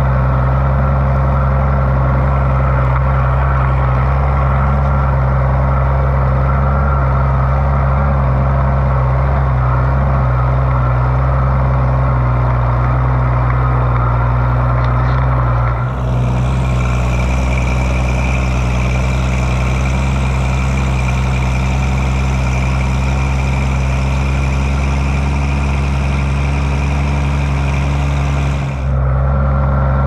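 Oliver 1655 tractor engine running steadily, heard close up. Around the middle a brighter hiss and a high whine join the engine for a stretch, then drop away again.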